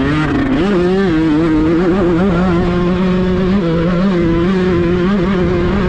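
A voice singing or melodic music with a wavering, ornamented line, over the steady noise of a motorcycle engine running.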